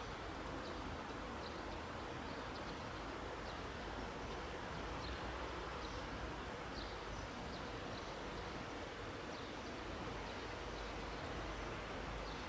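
Steady outdoor background noise beside a railway line, with faint short high chirps scattered through it.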